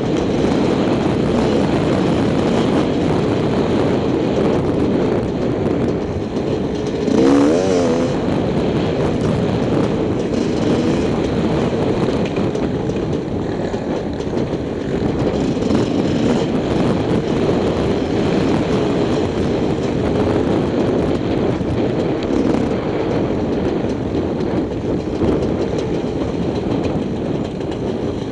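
Enduro dirt bike engine running under load on rough trail, its revs rising and falling with the throttle, with a short sharp burst of revs about seven seconds in.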